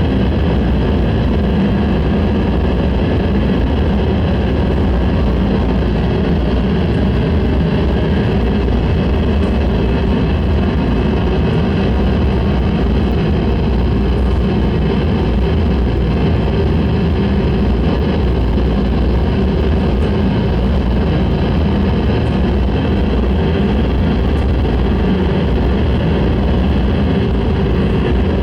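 Noise music: a loud, unchanging wall of dense rumbling noise with a faint steady hum running through it.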